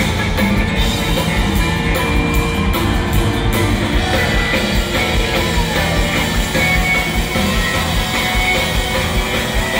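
Electric bass guitar solo played live through a concert PA, heard from the audience.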